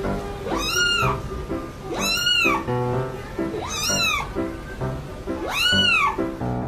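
Kitten meowing four times, about one and a half seconds apart, each meow high and thin, rising then falling in pitch, over background music.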